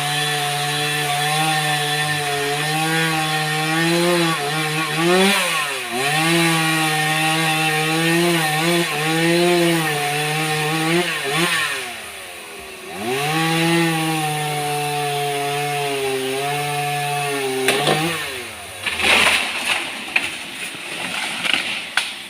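Chainsaw running at high revs while cutting wood, easing off briefly a few times and revving back up. Near the end the engine note stops, giving way to a few seconds of rough, irregular noise.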